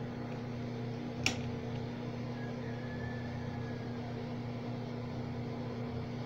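Electric desk fan running with a steady motor hum, and a single sharp click about a second in.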